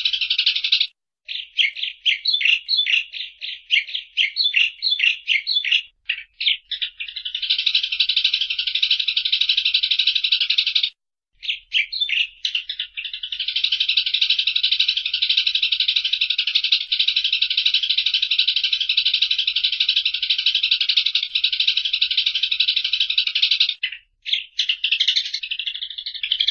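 Eurasian tree sparrows chattering: dense, scratchy, rapid chirping. It is broken by a few short pauses, with runs of separate quick chirps between the long unbroken stretches.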